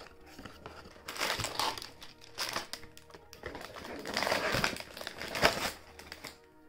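A cardboard LEGO BYGGLEK box being torn open by hand: its taped flaps ripping and the packaging crinkling in several bursts, the longest about four seconds in. Soft background music plays underneath.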